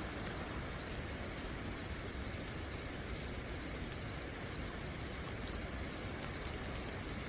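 Steady night rain, with a cricket chirping in a fast pulsing trill high above it and toads croaking faintly underneath.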